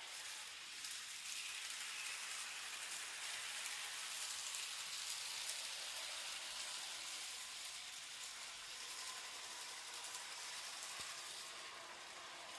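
Z gauge model train running along the track: a faint, steady high hiss that swells toward the middle and eases off near the end, with a faint thin whine coming in during the second half.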